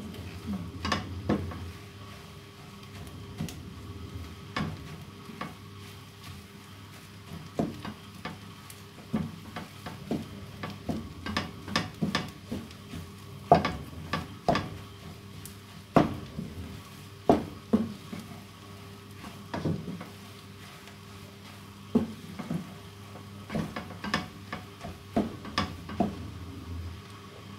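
Wooden spoon stirring and scraping food in a frying pan, with irregular sharp knocks of the spoon against the pan over a faint sizzle of frying.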